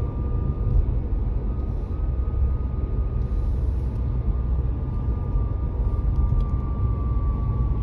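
Dacia Duster ECO-G 100 running, with a heavy low rumble and a steady high whine that drifts slightly in pitch: the strange noise the owner wants identified.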